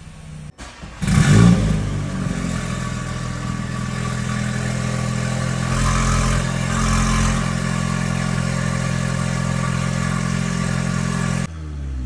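Exhaust of a Stage 2-tuned 2.0-litre turbocharged four-cylinder (8Y Audi S3 / MK8 Golf R platform): a quick rev about a second in, then about ten seconds of steady engine drone at constant revs that stops abruptly near the end.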